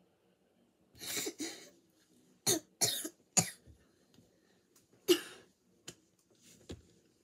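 A child coughing repeatedly: a run of about seven short, abrupt coughs spread over several seconds, with pauses between them.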